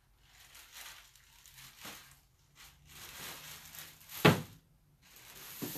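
Plastic bag crinkling and rustling as a pair of boots in it is handled, with a sharp thud about four seconds in, the loudest sound, and another knock near the end.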